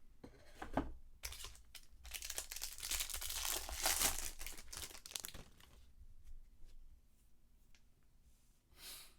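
Foil card-pack wrapper being torn open and crinkled, dense crackling for a few seconds, then faint ticks of handling and a short crinkle near the end.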